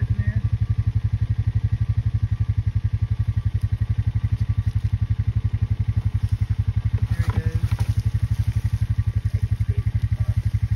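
An engine idling: a steady low throb of about seven beats a second.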